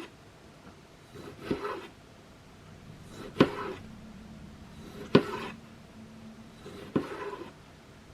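Knife blade drawn across a folding pocket diamond sharpening plate, four strokes about every second and three quarters: each a sharp tap as the edge meets the plate, then a short scrape.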